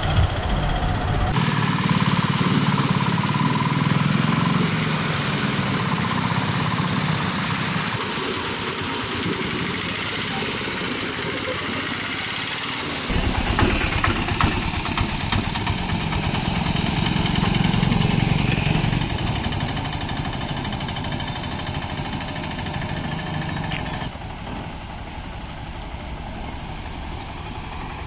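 Auto-rickshaw engines running as the three-wheelers drive through floodwater, with water splashing and swishing around their wheels and people's voices in the background. The engine sound swells twice as vehicles pass.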